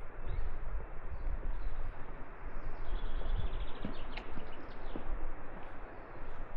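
Footsteps on a rocky lakeside path, with wind rumbling on the microphone. A short high trill of rapid ticks comes about three seconds in.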